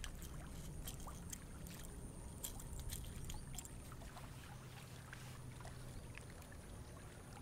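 Faint small waves lapping and trickling against shoreline rocks, with scattered light splashes and ticks over a low steady hum.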